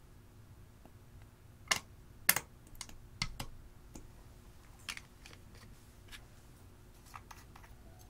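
Scattered sharp clicks and taps of small makeup bottles, caps and applicator brushes knocking against a glass dish, the two loudest close together about two seconds in and a few lighter clicks near the end.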